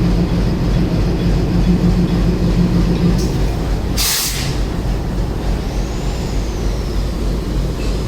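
Train locomotive running with a steady low hum that eases a little about three seconds in. A sharp burst of air-brake hiss comes about four seconds in.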